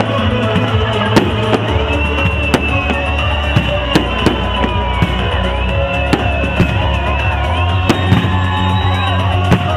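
Fireworks display: many sharp bangs and cracks at irregular intervals over loud music with sustained tones and a drumbeat.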